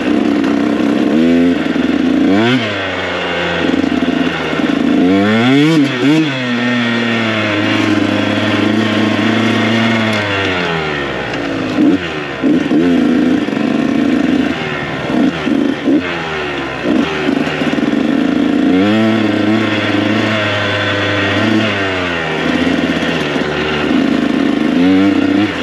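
Dirt bike engine ridden along a trail, its pitch repeatedly rising and falling with the throttle, with quick climbs in revs a couple of times and steadier running in between.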